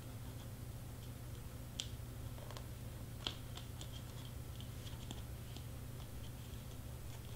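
Faint light clicks and taps of hands handling and pressing pieces onto a clear plastic shaker ornament, with a couple of slightly sharper clicks about two and three seconds in, over a low steady hum.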